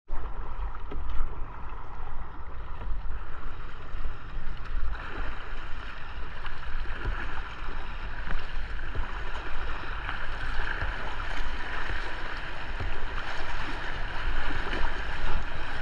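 Kayak paddle strokes and river water washing along the bow and hull of a kayak under way, with the rushing of broken water getting louder from about five seconds in. Wind rumbles on the microphone underneath.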